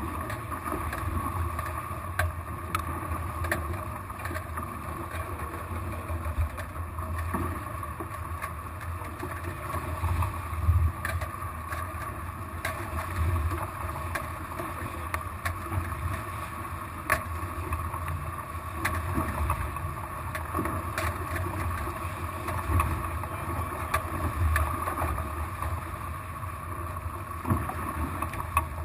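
Water rushing and splashing along the hulls of a small catamaran under sail, with wind on the microphone: a steady low rumble with scattered sharp ticks.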